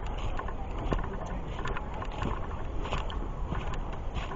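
Footsteps of hikers walking a dirt trail, irregular crunching steps over a steady low rumble on the microphone.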